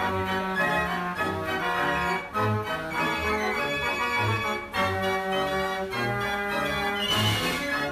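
An 89-key Marenghi fair organ playing a lively tune: pipe melody over bass notes pulsing on the beat, with a short burst of percussion near the end.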